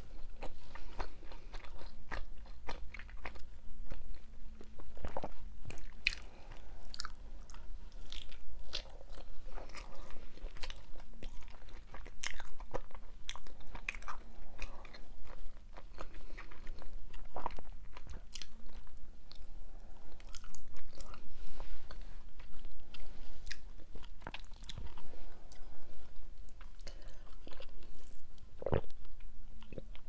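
Mini pizza being chewed close to a clip-on microphone: irregular crunching, biting and mouth sounds.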